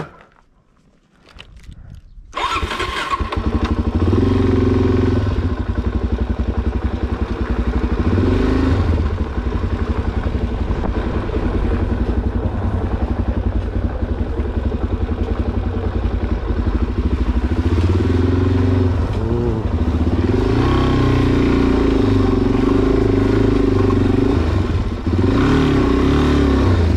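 Suzuki DR-Z400SM's single-cylinder four-stroke engine running as the motorcycle is ridden, revving up and down several times. The engine sound cuts in abruptly about two seconds in.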